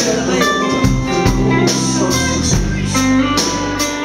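Live band playing with no singing: electric guitar over bass and drums, with a steady beat.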